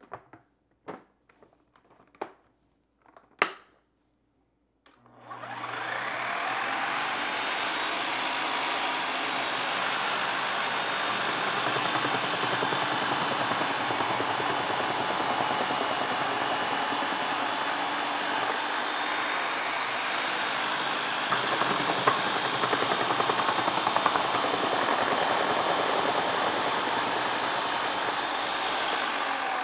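A few sharp plastic clicks as the Ninja Ultima food processor's parts are fitted, then its motor starts about five seconds in and runs steadily as carrots are pushed down the feed chute onto the spinning shredding disc, with a few louder knocks near the three-quarter mark.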